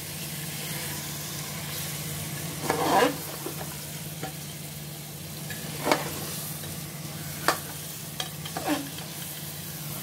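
Mutton pieces and masala sizzling as they fry in an aluminium pressure cooker, stirred with a metal spatula that scrapes and clinks against the pot a few times, sharpest about 3 and 6 seconds in, over a steady low hum. The masala has fried down until the oil separates.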